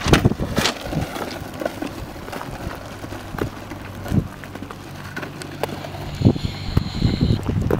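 Skateboard wheels rolling on rough asphalt as the skater pushes off and rides away, with scattered knocks and clicks. A faint steady hum comes in about halfway through.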